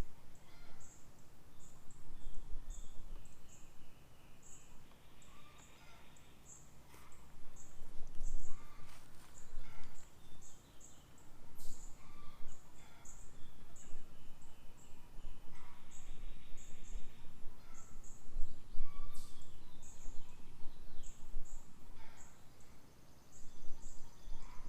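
Outdoor garden ambience full of songbirds: a short high chirp repeats over and over, with other birds calling in between, over a low steady rumble.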